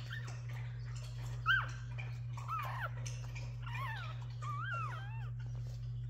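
Newborn Jack Russell Terrier puppies squeaking and whimpering: about six short, high squeaks that rise and fall in pitch, the loudest about a second and a half in, over a steady low hum.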